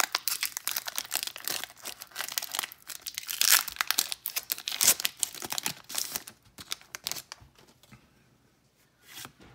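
Foil wrapper of a Pokémon Cosmic Eclipse booster pack being torn open and crumpled by hand: a dense run of crinkling that dies away about seven and a half seconds in.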